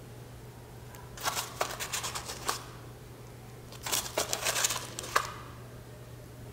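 Coarse rock salt being scooped with a wooden spoon from a small cup and tipped into a ceramic bowl: two short spells of gritty crackling and ticking, the second about two and a half seconds after the first. A steady low hum runs underneath.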